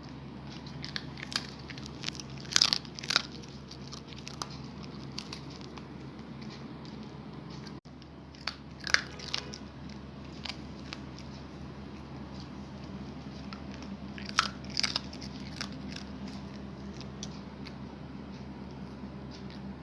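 A puppy crunching and chewing a hard snack: sharp crunches come in three spells of several bites each, over a steady low hum.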